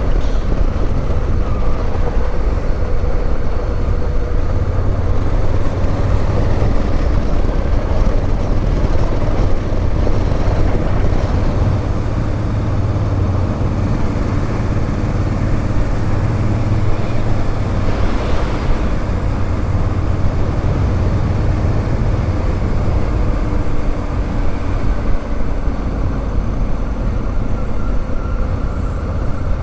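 Motorcycle being ridden at a steady speed: engine running with road and wind noise, an even low rumble that holds level without revving up or down.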